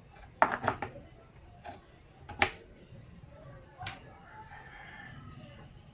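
A rooster crowing in the background, with a few sharp knocks from hand work on the boat: a quick cluster about half a second in and a single louder knock at about two and a half seconds.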